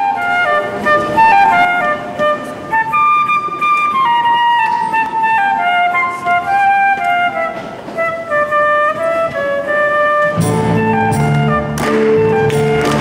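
A solo woodwind instrument plays a slow melodic intro of held notes that drift downward. About ten seconds in, the band joins with a bass line and a steady beat, and hand claps fall in time.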